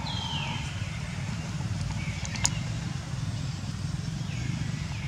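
Baby macaque giving high-pitched cries that fall in pitch, one at the start and a shorter one near the end, over a steady low rumble.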